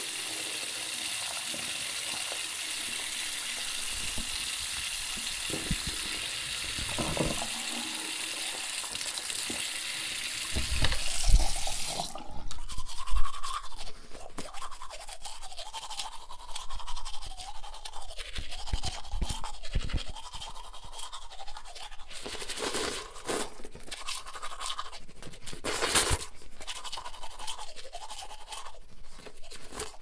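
Water running steadily, with a couple of knocks, then stopping suddenly about twelve seconds in. It is followed by irregular, quick scratchy scrubbing sounds with a brief louder burst near the end.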